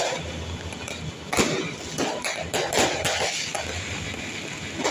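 Fireworks going off overhead: irregular sharp bangs and crackles from bursting aerial shells, the loudest bang about a second and a half in.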